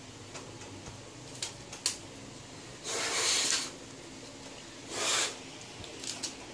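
Someone blowing hard into an opened laptop to clear dust from its parts: two hissing rushes of breath, one of nearly a second about three seconds in and a shorter one about two seconds later. Small plastic clicks from handling the laptop's parts come before and after.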